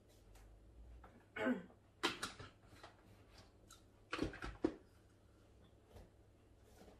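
A few short clatters and clicks from vitamin bottles and pills being handled at a kitchen counter, coming in three brief clusters, one of them as a dropped pill lands.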